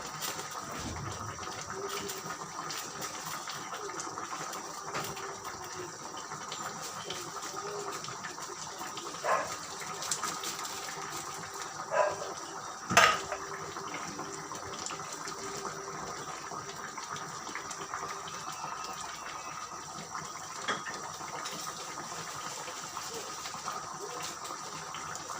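A pot of chicken in fresh tomato sauce simmering on the stove with a steady bubbling hiss. A few sharp clinks of a utensil come about nine, twelve and thirteen seconds in, the last the loudest, and once more near the end.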